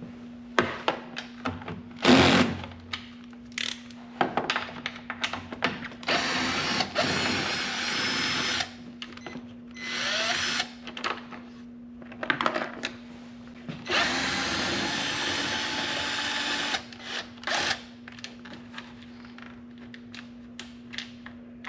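Cordless drill-driver spinning out 10 mm bolts from the plastic headlight surround, in three steady runs of one to three seconds each. Clicks and knocks of handling sound between the runs.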